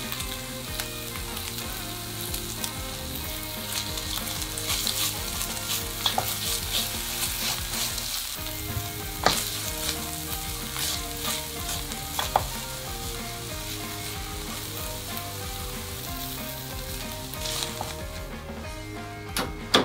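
Ground pork, garlic chives and green onion sizzling in oil in a frying pan as they are stir-fried with doubanjiang. A silicone spatula scrapes through them and knocks sharply against the pan a few times.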